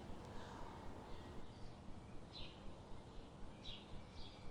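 A small bird giving short, high chirps, several times and about a second or so apart, faint over a steady background hiss.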